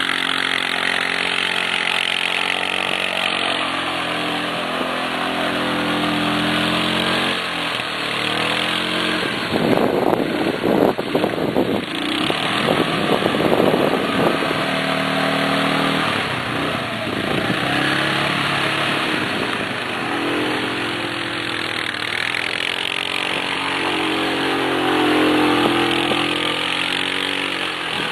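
A 450 cc ATV engine revving up and down again and again as the quad is ridden hard, with a rougher, noisier stretch about ten seconds in.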